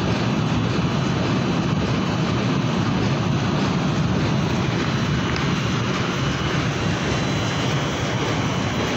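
Steady, unbroken mechanical drone, like machinery or a fan running, with a faint high whine over it.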